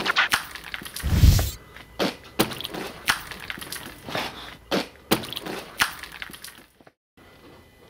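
A run of irregular sharp knocks and clicks, with one heavy thump about a second in, growing sparser and cutting off suddenly near the end.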